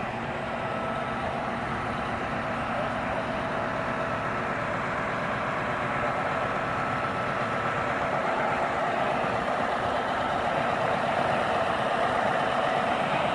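Crane truck's diesel engine running steadily to drive its loader crane as it lifts a heavy load, with a steady whine on top. It grows slightly louder toward the end.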